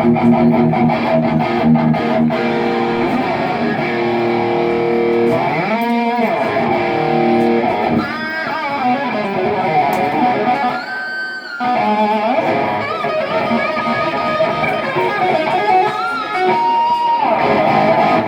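Electric guitar played solo, with sustained, bent lead notes and chords.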